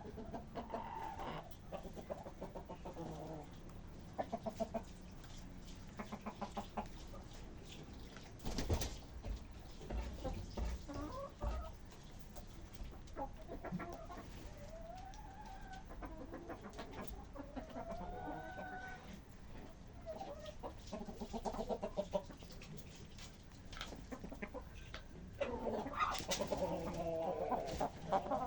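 A flock of chickens clucking and calling, with short rising and falling calls overlapping, busier near the end. About a third of the way in there is one sharp knock followed by a few seconds of low rumble.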